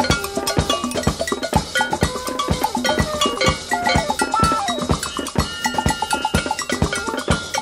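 Instrumental samba-style jazz track: quick, steady percussion hits and drums under held melodic lines.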